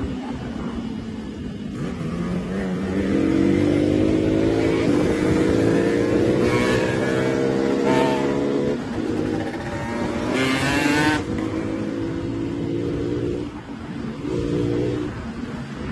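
Motorcycle engine revving hard and held high through a wheelie, its pitch climbing for several seconds and easing off about nine seconds in, with a short harsh burst of noise about ten seconds in.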